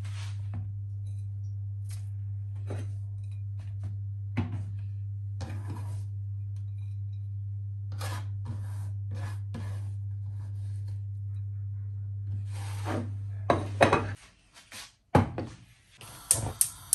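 Hands and a knife scraping and tapping shredded carrots across a wooden chopping board and onto a ceramic plate, in short scattered scrapes and clicks over a steady low hum. The hum cuts off about fourteen seconds in, and a few louder knocks follow near the end.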